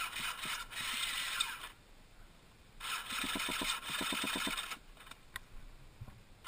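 KTM two-stroke enduro motorcycle engine being cranked over to start, in two attempts of about two seconds each, with a quick pulsing against compression. Each attempt stops without the engine catching.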